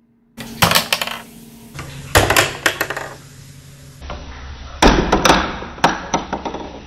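A small ball clattering through a LEGO-brick marble maze, rattling and knocking against the plastic bricks as it drops and rolls. The clicks come in four quick clusters.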